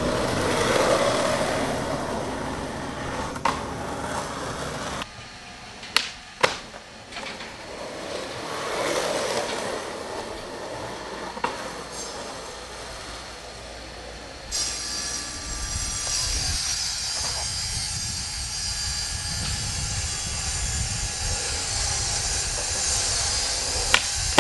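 Skateboard wheels rolling over asphalt, a rough steady rumble that turns deeper about midway, broken by sharp clacks of the board popping and landing: two close together about six seconds in, others later, and a loud one near the end.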